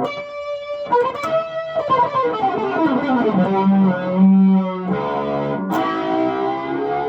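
Fernandes fretless electric guitar with a Sustainer system, played through an amp: a few plucked notes, then notes sliding down in pitch, then long held notes kept ringing by the Sustainer, the last one rising slightly near the end.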